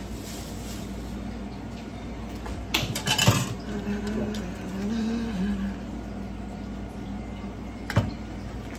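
Kitchen handling sounds: a burst of crinkling and clicking about three seconds in as a plastic bag and small seasoning packets are handled, and a single sharp click near the end as a glass jar is set down, over a steady low hum.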